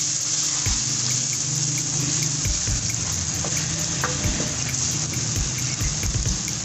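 Onions, green chillies and spices frying in oil in a non-stick wok: a steady sizzle as the masala roasts on a lowered flame. A wooden spoon stirs the pan, with low knocks now and then.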